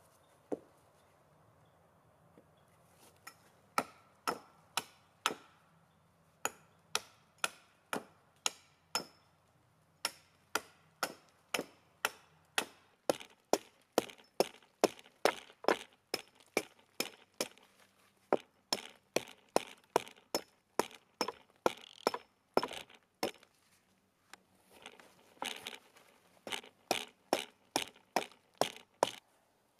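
Hatchet chopping into a dead log: a long run of sharp, even blows about two a second, with a short pause near the end.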